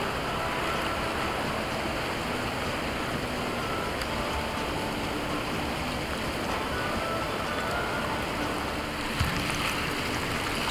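Broken ice and slush shifting on tidal water: a steady fizzing hiss with faint short high notes scattered through it, and a single soft knock about nine seconds in.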